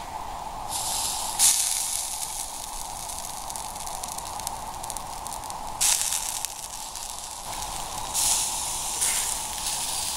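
Meat on metal skewers sizzling over campfire embers, with hissing and crackling that swells in bursts as fat drips onto the coals.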